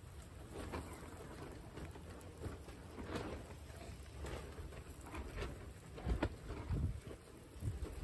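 A herd of guinea pigs munching and rustling fresh grass and straw: a dense, uneven crackle of chewing and rustling. Under it is a low rumble of wind on the microphone, with a couple of louder gusts about six seconds in.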